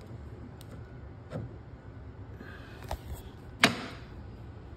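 A few scattered clicks and knocks from handling the metal parts of a barber chair's recline mechanism, with one sharp knock about three and a half seconds in.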